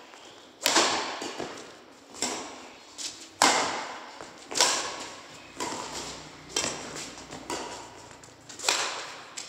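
Badminton rackets striking a shuttlecock back and forth in a rally: sharp smacks roughly once a second, each trailing off with echo.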